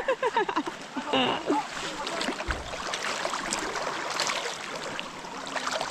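Water splashing and running in a creek swimming hole, with voices calling out in the first second or so.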